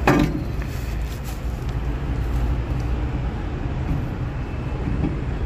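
A sharp metallic knock at the very start as the cast-iron brake drum is pushed onto the truck's wheel hub, followed by a few faint clicks as it is worked into place, over a steady low vehicle-like rumble.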